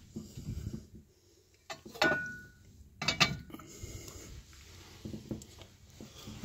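Cast iron Dutch oven being handled and set down on the iron grate of a brick rocket stove: scattered metal clanks and clicks, one about two seconds in ringing briefly, the loudest a little after three seconds.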